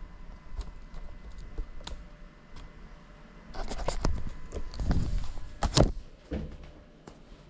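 Handling noise from an FPV drone being picked up and set down on a hard floor: scattered clicks, then a cluster of knocks and rustling about halfway through with one sharp knock near the end. The motors are not running.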